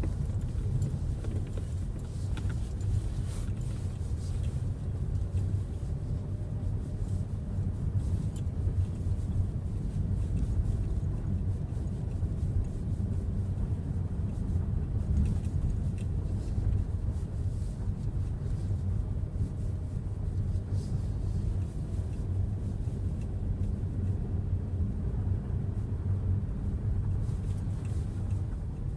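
Inside the cabin of a Hyundai Creta 4WD on the move: a steady low rumble of road and drivetrain noise, with a few faint scattered ticks.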